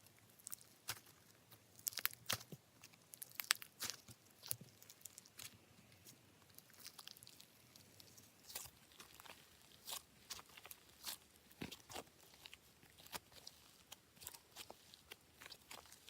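Hands squishing, stretching and poking slime, making irregular small sticky clicks and pops, a few each second.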